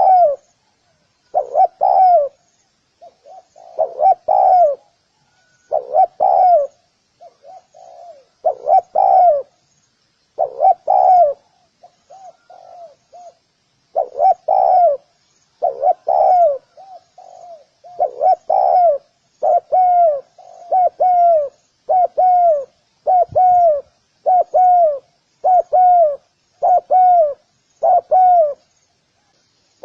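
Spotted dove cooing: its call phrase repeats about every second and a half, steadily and evenly spaced in the second half, with quieter short coo notes between the phrases earlier on.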